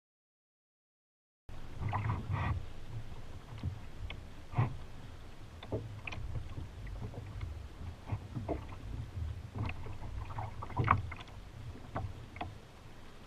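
Silence for about the first second and a half, then lake water lapping against a fishing kayak's hull with small irregular splashes and knocks, over a low rumble of wind on the microphone.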